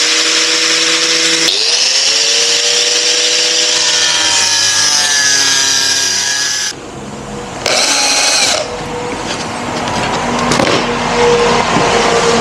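Cordless angle grinder cutting an aluminium composite panel: its whine cuts out and spins back up about a second and a half in, then sinks as the disc bites into the panel. About seven seconds in, a cordless drill takes over, running steadily against the panel.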